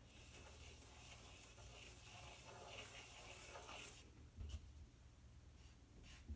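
Faint scratching of a General's white charcoal pencil drawing on black paper for about four seconds, followed by a few faint soft taps.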